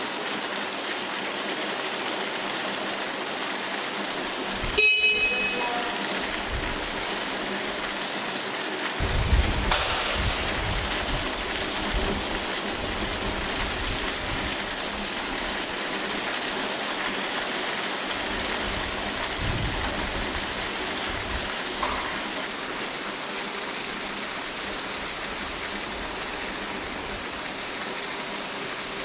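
Heavy rain pouring steadily onto pavement during a severe thunderstorm. A brief sharp click comes about five seconds in, and bursts of low rumbling come and go from about nine seconds on.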